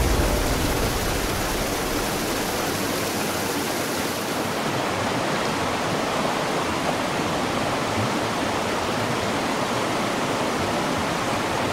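Steady rushing of whitewater rapids through an artificial slalom course, an even hiss of churning water that turns a little duller about four seconds in.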